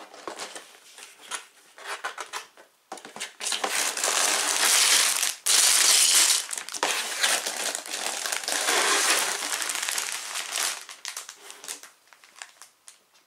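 Clear plastic bags of Lego pieces rustling and crinkling as they are pulled out of an opened cardboard box and put on a table, loudest through the middle. Lighter handling of the cardboard box comes first, and the rustle fades near the end.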